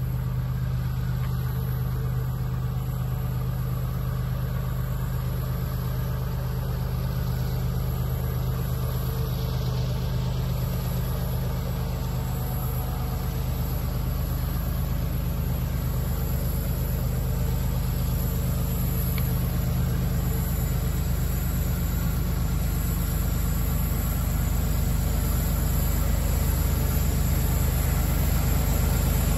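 Diesel locomotives of an approaching freight train, a steady low engine drone that grows gradually louder over the last ten seconds or so.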